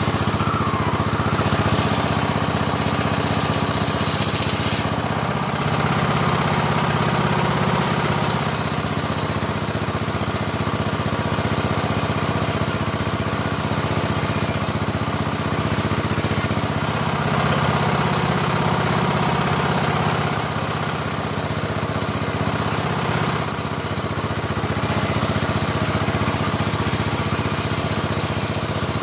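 Engine of a portable bandsaw sawmill running steadily, with a high hiss that swells and fades several times.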